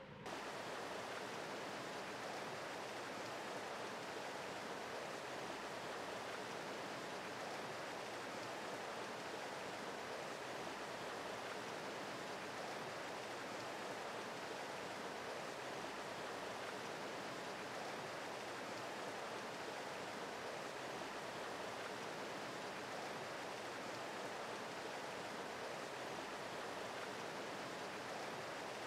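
Steady, even rushing noise of water that starts abruptly and then holds unchanged.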